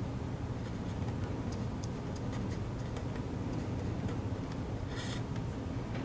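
Pen writing on paper: faint scratches and ticks, with one louder scratch about five seconds in, over a steady low room hum.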